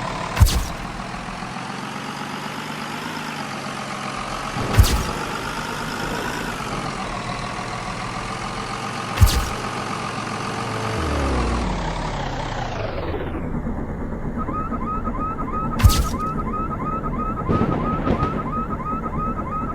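Vehicle running with steady engine and road noise and a sharp thump every few seconds. About two thirds of the way through, the engine and road noise wind down with a falling pitch as the vehicle slows, leaving a fast repeating chirp.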